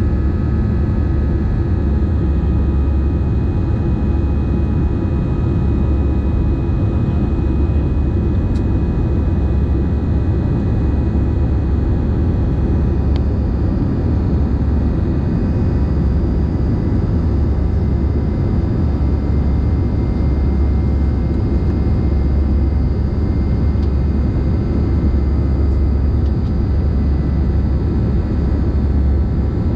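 Jet airliner cabin noise during the climb after takeoff: engines and airflow heard from a seat over the wing as a steady low rumble, with faint steady whine tones above it.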